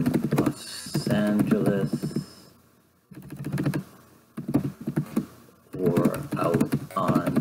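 A man's voice speaking in short phrases through a headset microphone, with a quiet gap in the middle, over a run of light clicks typical of typing on a computer keyboard.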